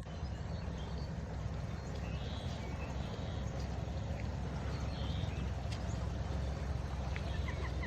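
Dawn bird chorus: scattered short bird calls and chirps, faint, over a steady low rumble.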